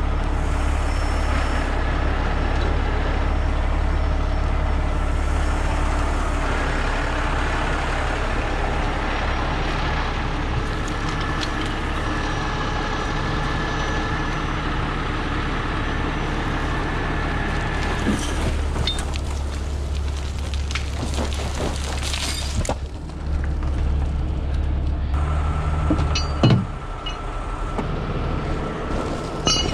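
A heavy rotator tow truck's diesel engine running steadily nearby, a constant low drone. A single sharp knock comes near the end.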